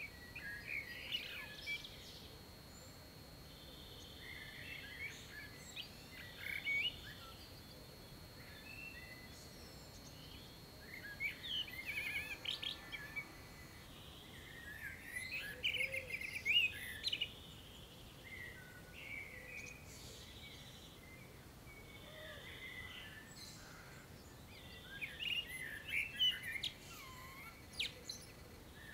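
Dawn chorus: songbirds singing in short, varied phrases that come and go, busiest about halfway through and again near the end. A faint steady high tone sounds under the song through the first half.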